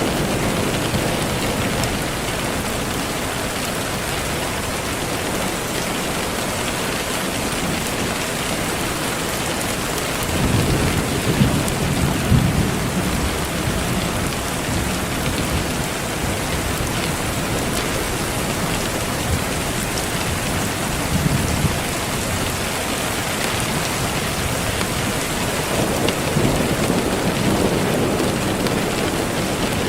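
Steady rain falling, with low rolls of thunder swelling about a third of the way in, again around two-thirds of the way through and near the end.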